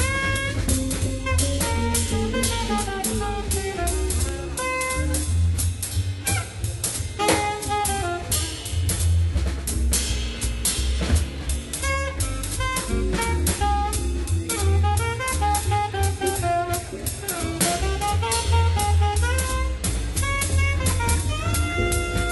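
Jazz music with a drum kit keeping a steady beat under a melody that slides up and down in pitch.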